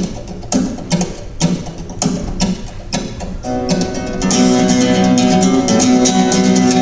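Flamenco guitar music. Separate plucked notes and chords come about every half second at first. About three and a half seconds in, it turns into a denser, louder run of continuous strummed chords.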